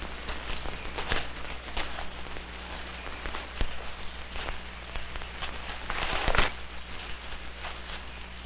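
Scattered, irregular crackles and ticks over a steady low hum, with a denser, louder patch of crackling about six seconds in: the surface noise of a worn 16mm film soundtrack.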